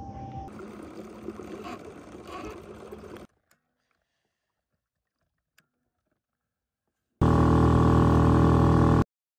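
A boat's motor running with a loud, steady, even tone for about two seconds, starting and stopping abruptly near the end. Before it, about three seconds of wind and water noise, then a few seconds of near silence.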